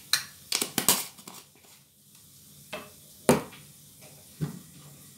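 Kitchen utensils and containers being handled, giving a quick cluster of sharp knocks and clatters in the first second and single knocks about three and four and a half seconds in. Under them is the faint sizzle of squid frying in a pan.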